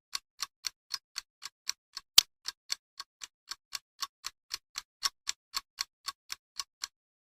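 Clock-style ticking sound effect, an even tick about four times a second. One much sharper, louder click comes a little over two seconds in. The ticking stops shortly before the end.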